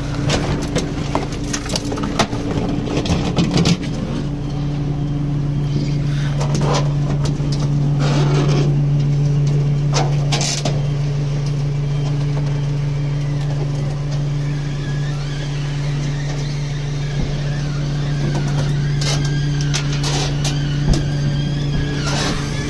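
A flatbed tow truck's winch drive running with a steady hum, louder from about four seconds in, as it drags a car up the bed on a hook. Scattered metallic clanks and knocks, and squeaking near the end.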